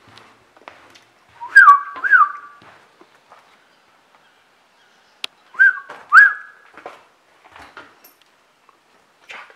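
A person whistling a short two-part call, each part a quick rise and fall settling onto a held note, given twice about four seconds apart. Faint clicks and crunches of movement over debris run between the whistles.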